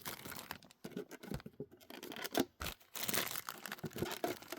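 Plastic wrapping being torn and crinkled off a trading-card tin, in short irregular rips and crackles with brief quiet gaps.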